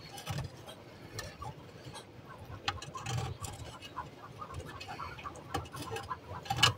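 Faint scattered clicks and scrapes of a long-handled tool rummaging in a nest under a raised floor, raking out eggs.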